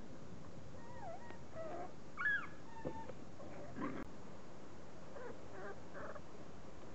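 Beagle puppies whimpering: several short, high whines that slide up and down in pitch, the loudest a little over two seconds in, over a steady background hiss.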